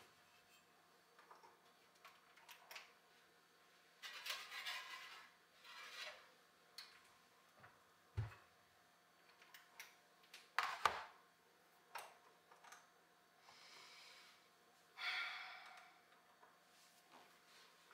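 Faint kitchen handling sounds: scattered clicks and knocks, a dull thump about eight seconds in, and two brief swishing rustles, one about four seconds in and one near the end, as a pizza is put in the oven and the empty metal pizza peel is laid back on the counter.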